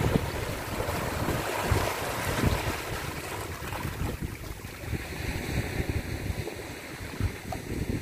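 Small waves washing in over low rocks at the water's edge, with gusty wind rumbling on the microphone. The hiss of the wash fades about halfway through.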